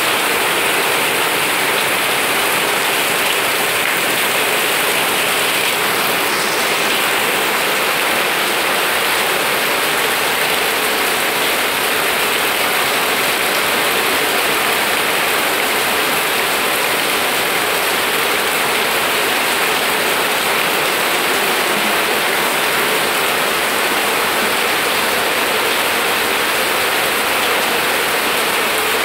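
Steady heavy rain falling, a dense even hiss.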